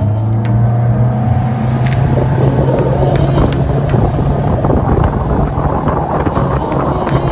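Parsun 60 HP outboard motor running under way at speed, a steady low drone mixed with rushing water and wind noise.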